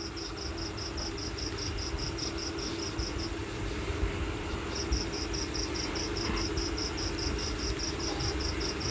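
Insect chirping in a fast, even rhythm, about six high chirps a second, with a break of about a second and a half near the middle, over a steady low hum.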